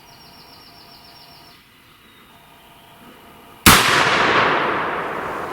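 A single shotgun shot fired at a wild turkey gobbler, a sudden loud blast about three and a half seconds in that rings out and fades slowly over the following seconds.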